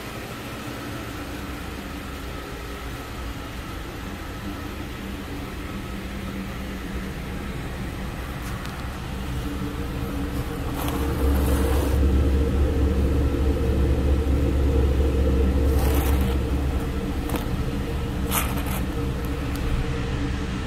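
A 2009 Cadillac CTS 3.6-litre V6 idling steadily. From about eleven seconds in the exhaust note is louder and deeper, heard at the tailpipe, which runs into a shop exhaust-extraction hose. A few light clicks come near the end.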